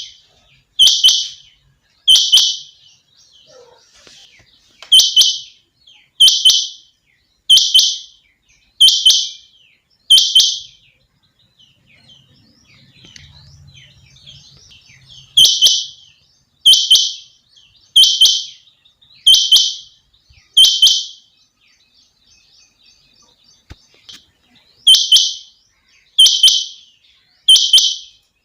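Rain quail, the female's call as the video labels it: short, high, identical calls repeated about every 1.3 seconds in three runs, seven, then five, then three, with pauses of a few seconds between runs.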